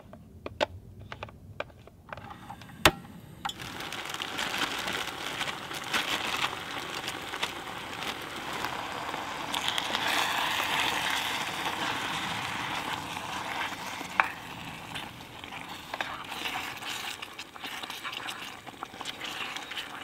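A few light clicks and one sharper knock, then food sizzling and crackling in a hot pan from about three and a half seconds in, swelling around the middle.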